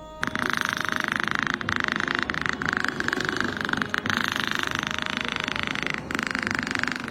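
A domestic cat purring: a steady, fast-pulsing rattle that starts abruptly and keeps going with a few brief dips.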